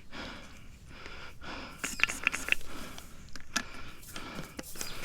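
A person moving through bush on foot: irregular rustling and crackling steps through leaves and undergrowth, with audible breathing.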